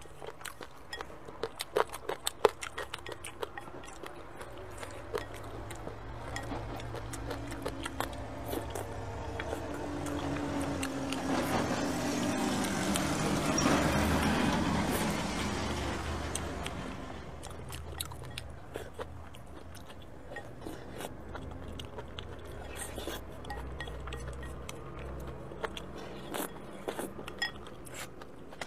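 Eating sounds: wooden chopsticks clinking and scraping against a ceramic bowl, with chewing of sticky potato-starch noodles, in many small clicks. A broad rushing noise builds, is loudest about halfway through, then fades.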